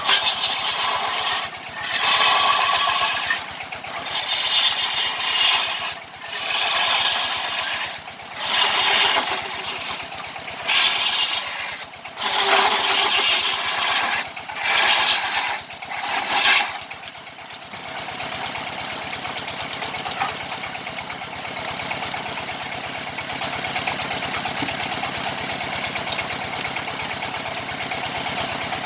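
Power tool cutting into wood for a kendang drum body in repeated bursts of one to two seconds with short breaks between. About two thirds of the way in it settles into a steady, evenly pulsing running sound without the cutting bursts.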